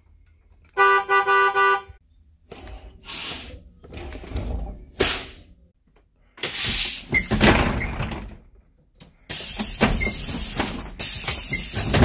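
Thomas Built C2 school bus horn sounding three quick honks, followed by a string of loud air hisses from the bus's air brakes and its air-operated folding entrance door. The hisses come as short sharp blasts and then two longer ones of about two to three seconds each.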